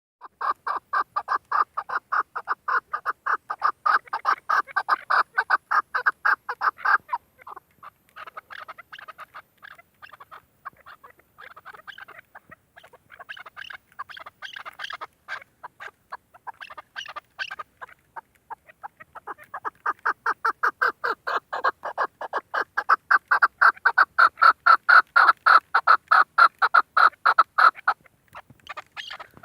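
Female chukar partridge calling: fast runs of short, repeated clucking notes. A loud run for the first seven seconds, softer, broken calls after it, and a second loud run from about twenty seconds in that stops shortly before the end. It is the hen's call that hunters use to lure cocks.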